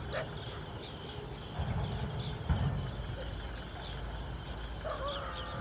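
Outdoor forest-edge ambience: insects trilling steadily and birds chirping, over a low rumble that swells for a moment about two seconds in. Near the end a voice starts with drawn-out pitched sounds.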